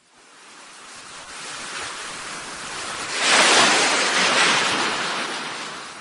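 Sound of sea waves: a wash of surf that builds up, breaks loudest a little past the middle, then ebbs away.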